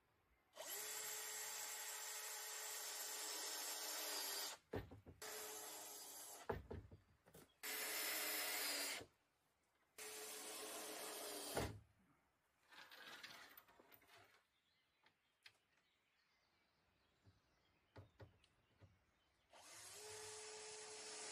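Cordless drill running in several bursts, a long one of about four seconds and then shorter ones, as it bores or drives into a wooden panel. Small knocks and handling sounds come between the bursts.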